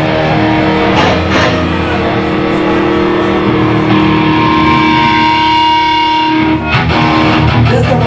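Live heavy metal band playing, led by electric guitar: one long held guitar note rings out over the band and cuts off about six and a half seconds in, likely the opening of a song.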